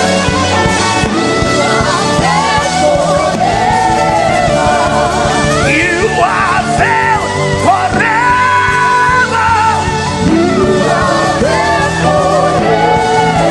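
Worship music: steady instrumental backing under a voice singing without clear words, with gliding runs and a long held note about two-thirds of the way through.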